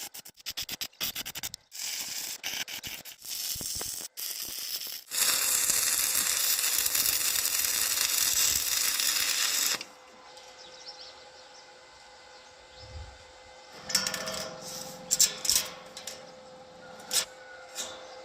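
Metalworking noises: a rapid run of clicks, then about five seconds of steady loud hissing noise that cuts off sharply, then a few scattered taps and knocks.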